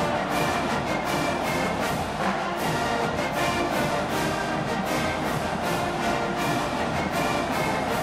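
Marching band music: brass instruments playing held notes over a steady, quick drum beat.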